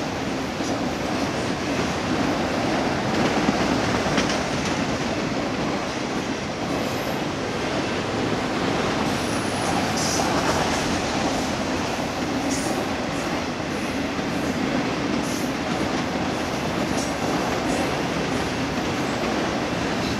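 Freight train of enclosed autorack cars rolling past: a steady rumble of steel wheels on rail. Brief high wheel squeaks come now and then.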